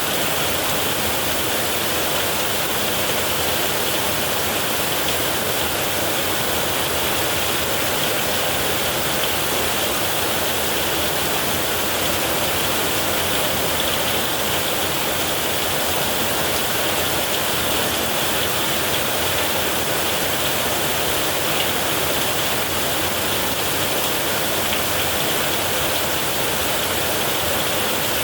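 Heavy rain falling steadily on a tin roof, a dense, even hiss with no change in strength.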